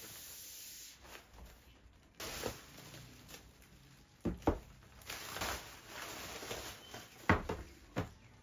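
Plastic mailer bag and bubble wrap rustling and crinkling as boxes are pulled out, with several sharp knocks of cardboard boxes set down on a desk. The loudest knock comes about seven seconds in.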